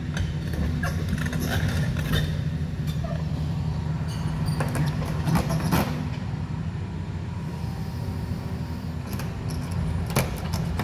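Tracked excavator fitted with a hydraulic rock breaker, its diesel engine running steadily as it moves along the dirt road, with scattered clicks and clanks over the engine hum.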